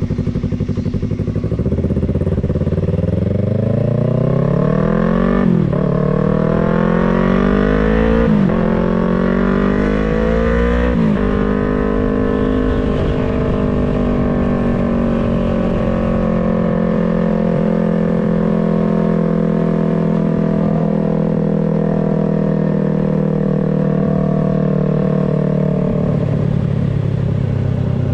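Yamaha MT-03's parallel-twin engine pulling away. It revs up through the gears, with three quick upshifts where the pitch drops sharply, then runs at a steady cruise. Near the end the revs fall as the rider eases off.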